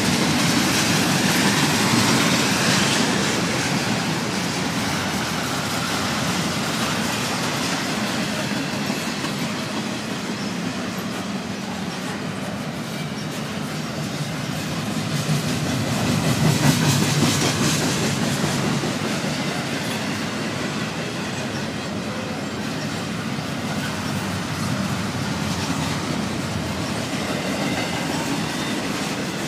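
Norfolk Southern double-stack intermodal freight cars rolling past close by, a continuous rumble and rattle of steel wheels on rail. It swells briefly about two seconds in and again a little past halfway.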